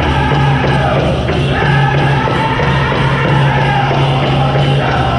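Powwow drum group singing a chicken dance song: voices in unison over a steady drumbeat on a large shared drum.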